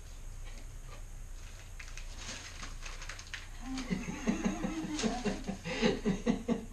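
Crumpled newspaper packing rustling faintly, then from about four seconds in a person laughing in a quick run of short "ha" sounds, which is the loudest part.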